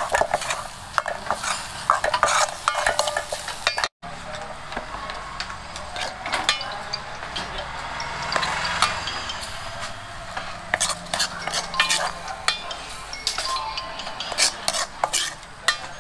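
Food sizzling in a hot pan while a metal utensil stirs and scrapes it, with many sharp metallic clinks against the pan. The sound breaks off for an instant about four seconds in.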